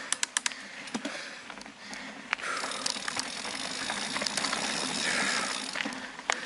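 Mountain bike rolling along a dirt forest trail. A quick run of sharp clicks and rattles from the bike comes in the first half-second, then tyre noise on the dirt builds and grows louder around the middle.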